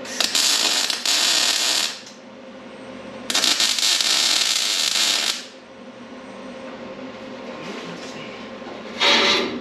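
MIG welding arc crackling and sputtering in two bursts of about two seconds each, tack-welding steel tubing onto a race car's tubular bumper. A short rough noise follows near the end.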